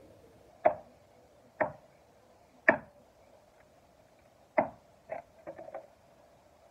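Sharp metallic clicks of a 10 mm socket wrench working the screws on a Predator 3500 inverter generator: four loud clicks about a second apart, then a few lighter ticks.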